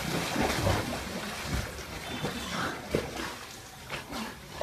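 Water splashing and churning as a dog swims through a pond toward a person in the water.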